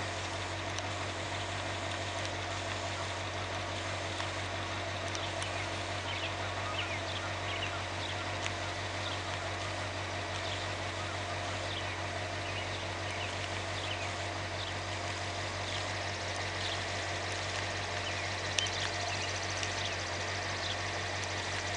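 Car engine idling steadily, a low even hum with no change in pitch, with many short high chirps from birds scattered over it.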